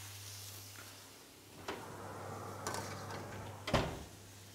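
Oven door clicking open, a metal baking tray going in with a light clatter, then the door shutting with a thud near the end, the loudest sound.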